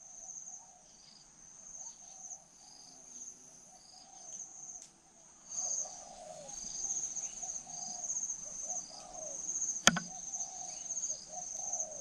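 Spotted doves cooing back and forth, a caged decoy and a wild dove counter-calling each other, with the calls stronger from about halfway through. A steady high insect trill runs underneath, and there is one sharp click near the end.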